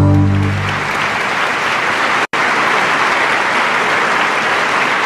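A large audience applauding steadily, as a music chord dies away in the first second. There is a brief, sudden dropout a little over two seconds in.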